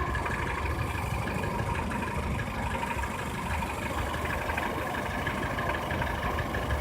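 Peugeot 307 engine idling steadily, a low pulsing rumble with a steady higher whine above it: the abnormal engine noise being checked.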